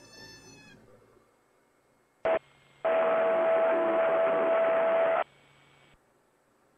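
Aircraft radio receiving a transmission with no readable words, heard over the intercom. A short click-burst about two seconds in, then about two and a half seconds of loud, narrow-band static with a steady tone through it, starting and stopping abruptly like a keyed mic. This is typical of a garbled or stepped-on transmission on the frequency.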